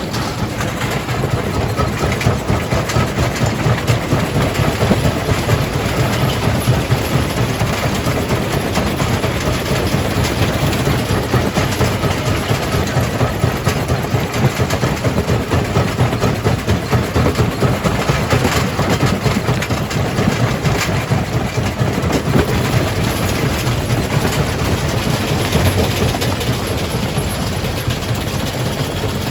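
Jaw crusher crushing rock: a steady heavy rumble under dense, continuous clattering of stone in the machine.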